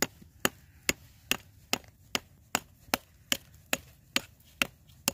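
Rock hammer chipping at a mineralized rock face of sulfides and magnetite in schist: a steady run of about thirteen sharp, evenly spaced strikes, a little over two a second, breaking the rock away to expose the pod.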